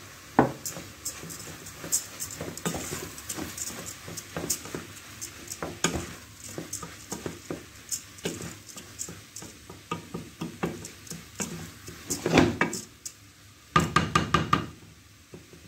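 A wooden spoon stirring rice and diced vegetables in a stainless steel pot, knocking and scraping irregularly against the pot's sides and bottom. There are louder knocks about half a second in and about twelve seconds in, and a quick run of taps near the end.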